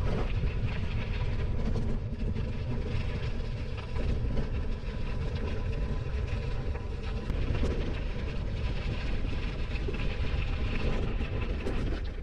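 Steady rumbling noise of riding a bicycle: tyres rolling and wind on the microphone, with a few faint clicks.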